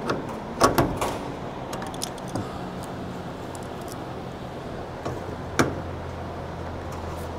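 A ratchet wrench tightening the bolts of a control-cable pulley bracket on an aircraft bulkhead: scattered sharp metallic clicks and clinks, the loudest just under a second in and another past five seconds, over a steady low hum.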